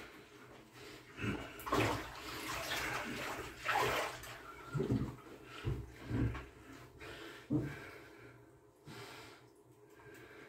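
Bathwater sloshing and splashing in a tub as a person shifts and rises to a squat, with a few short dull knocks in the middle.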